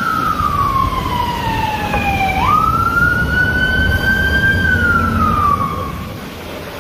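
Airport crash tender's siren wailing: a slow tone that falls, snaps back up, rises and falls again, over a low rumble as the truck drives past. The siren fades out near the end.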